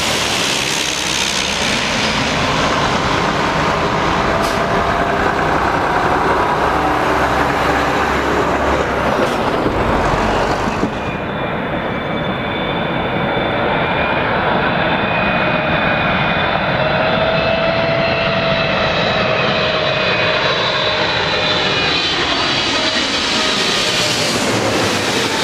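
Jet airliner engines on landing approach: loud, steady jet noise with whining tones that slide down in pitch as the aircraft passes. About eleven seconds in the sound changes abruptly and loses its highest hiss.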